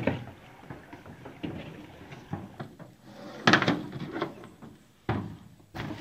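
Several irregular knocks and bumps on an aluminum canoe, the loudest about three and a half seconds in.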